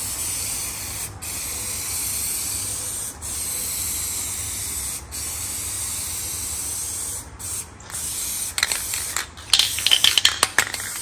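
Aerosol spray-paint can hissing as the final coat of yellow paint goes onto a mower deck, in long passes of about two seconds with brief breaks between them. Near the end the spraying stops, and a quick run of sharp clicks and rattles follows.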